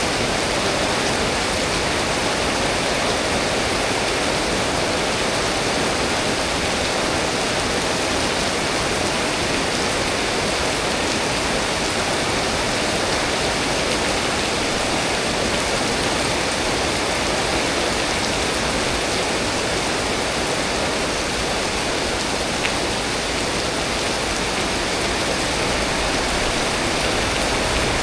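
Heavy rain falling steadily, a dense, even hiss that keeps up without let-up.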